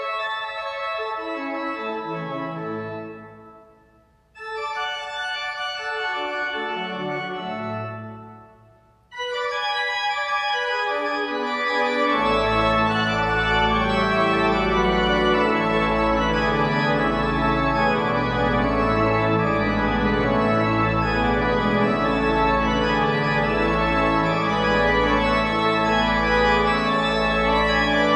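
Three-manual church organ being played: two short phrases, each fading away, then a fuller continuous passage from about nine seconds in, with deep pedal notes joining a few seconds later.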